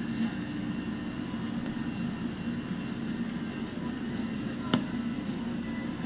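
Steady background hum of a large big-box store, with one sharp click late on.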